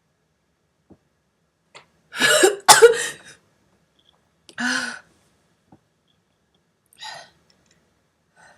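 A woman sneezes hard about two seconds in: a breathy intake, then a sharp explosive burst, the loudest sound. A shorter voiced breath follows about two seconds later, then faint breathy sniffs.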